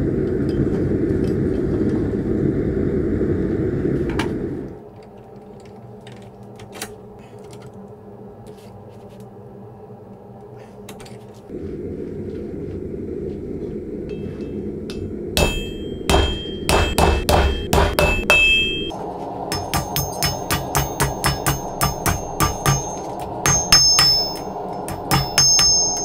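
Gas forge burner running with a steady low rush, then hammer blows on a steel anvil, each one ringing. The strikes come unevenly at first about fifteen seconds in and settle into a steady two or three a second as the red-hot bearing ring is flattened.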